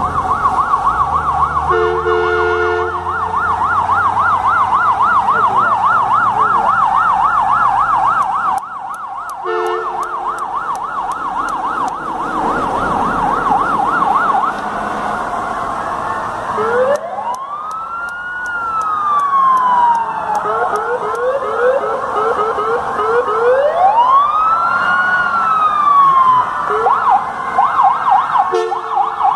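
Fire truck sirens: a fast yelp siren warbling for the first half, then a wail siren rising and falling twice. Short horn blasts sound twice, about 2 and 10 seconds in.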